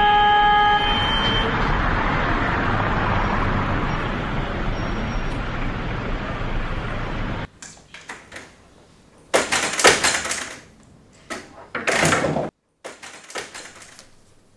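Steady rushing street noise that cuts off suddenly about seven seconds in. Then, in a quiet lobby, a glass entrance door is heard opening and closing in two short bursts of noise.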